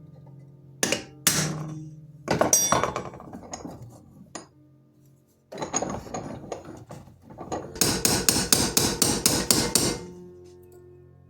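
Hammer blows on the metal of an old knife: a few separate strikes, then a rattly stretch, then a fast run of about five blows a second near the end, knocking the old handle off its pinned-over nails. Background music underneath.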